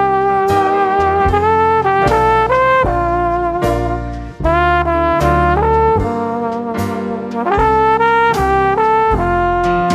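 Outro music: a brass-led melody over a bass line and a steady drum beat.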